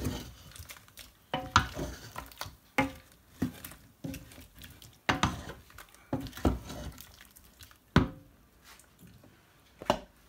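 Wooden spatula stirring blended pepper sauce through chunks of meat in an enamel pot, knocking and scraping against the pot's sides at irregular intervals of about a second.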